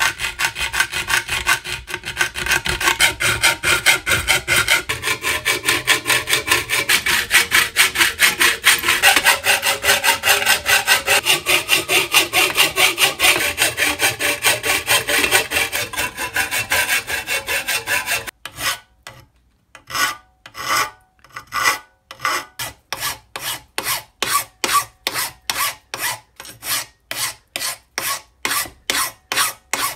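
Hand hacksaw cutting a slot in an aluminium extrusion clamped in a vise, fast continuous strokes. About 18 seconds in the sawing stops and a hand file takes over, slower separate strokes about two a second, filing the cut edge smooth.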